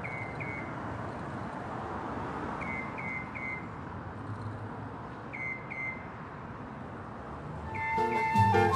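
Steady city street ambience with traffic noise, broken by short high chirps in groups of two or three. Music with a flute melody comes in near the end.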